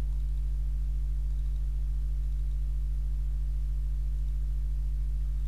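Steady low electrical hum: one low tone with a stack of overtones above it, unchanging throughout, with nothing else heard.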